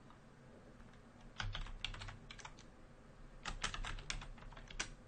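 Typing on a computer keyboard: two short runs of keystroke clicks, the first starting about a second and a half in, the second a little after the middle.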